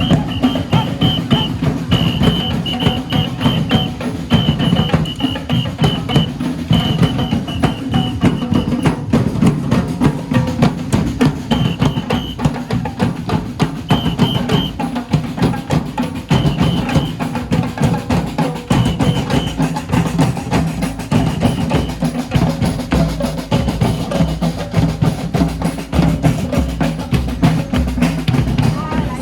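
Drum ensemble playing a loud, fast, driving rhythm with heavy bass drums. Runs of short high notes come in repeated groups over the drumming, mostly in the first half.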